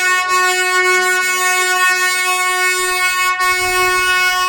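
Ooty toy train (Nilgiri Mountain Railway) horn sounding one long, steady, loud blast on a single pitch.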